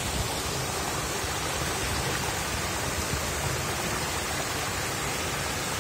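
Shallow water flowing over pebbles and spilling over low stone ledges in a small stream: a steady rushing and babbling.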